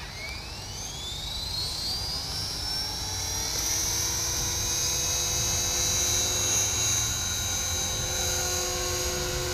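Align T-Rex 450 Pro electric RC helicopter spooling up. The motor and rotor whine rises in pitch over the first few seconds, then holds steady at flying speed as the model lifts into a low hover.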